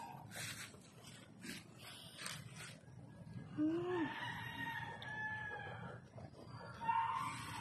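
A rooster crowing: one long crow of about two and a half seconds starting about three and a half seconds in, with a shorter call near the end. A few short scuffing noises come before it.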